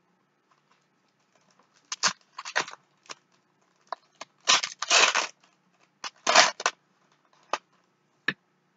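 Foil wrapper of a Topps Chrome trading card pack being torn open and crinkled in three short bursts, with a few sharp single clicks in between.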